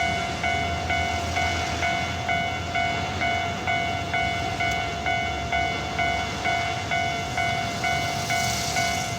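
Japanese railway level-crossing alarm ringing, its electronic bell struck over and over at about two strikes a second, each ding fading before the next. A low rumble runs underneath.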